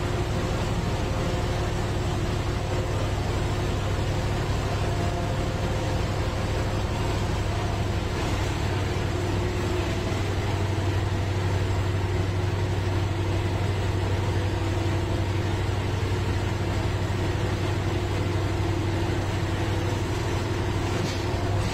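Track-laying machine running steadily in a railway tunnel: a constant low engine drone with a few steady higher tones over it.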